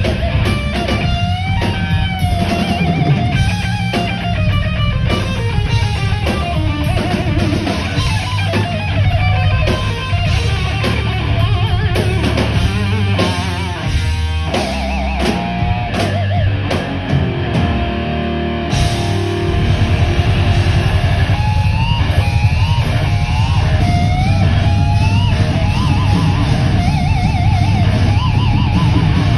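Heavy metal band playing live: a distorted electric guitar takes a lead line of bent and wavering notes over bass and drums. A fast repeated figure comes about halfway through, and the playing gets louder and fuller for the last third.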